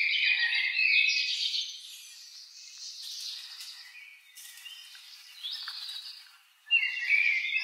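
Small birds chirping and twittering in quick high calls, loudest in the first second or so and again near the end, fainter in between.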